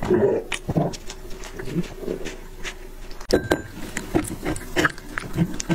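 A dog eating from a plate: irregular wet chewing, licking and smacking, with a sharper click against the plate about three seconds in.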